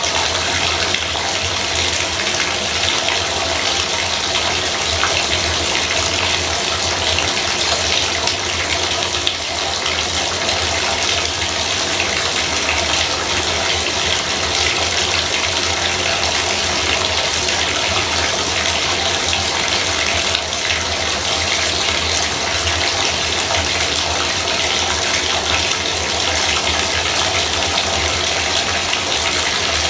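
Bathtub faucet running, water pouring steadily into the tub.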